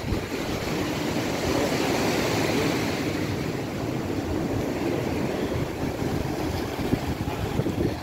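Steady wash of surf breaking on a sandy beach, with wind buffeting the microphone.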